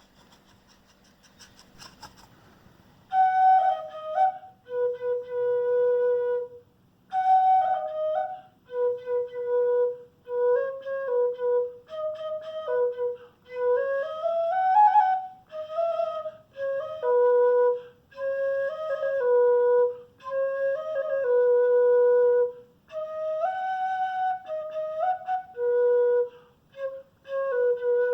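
Mbya mimby'i, a small takuapí cane flute with five finger holes and a beeswax mouthpiece, tuned to an E major scale, playing a slow melody of separate held notes. The playing starts about three seconds in, with a quick rising run of notes about halfway through.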